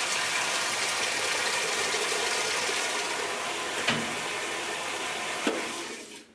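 Cold water gushing steadily from the inlet valve into the tub of a Whirlpool top-load washer as it fills, with a couple of light knocks; it fades out near the end. The washer fills on cold but not on hot, a fault typical of a bad water temperature selector switch.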